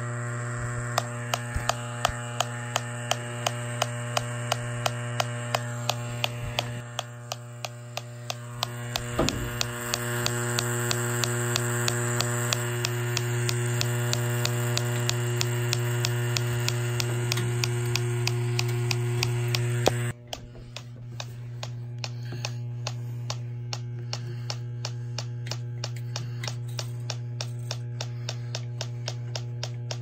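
Bacharach H-10 electronic refrigerant leak detector running: a steady electric hum with a regular ticking, about two to three ticks a second, as the probe searches an evaporator coil for a leak. The hum drops and the high hiss cuts off suddenly about twenty seconds in.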